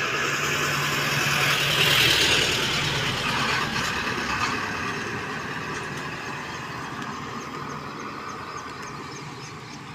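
Street traffic: a motor vehicle's engine passing close by, loudest about two seconds in, then fading slowly into the general road noise.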